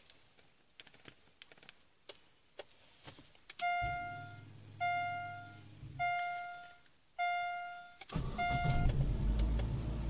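Remote start of a Daewoo Lanos from a Sheriff ZX-1090 PRO two-way alarm key fob. A few fob button clicks, then the fob beeps five times at a steady pace, the last one shorter. A low hum runs under the first two beeps, and about 8 s in the engine catches and settles into a steady low idle.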